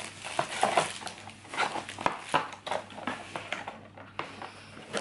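Cardboard box and paper inserts being handled and pulled apart while unpacking: scattered rustles, taps and light knocks.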